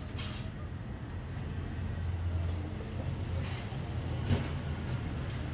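Steady low background rumble, like an engine or traffic running nearby, with a few faint light clicks of small metal parts being handled as a piston's oil ring is fitted by hand.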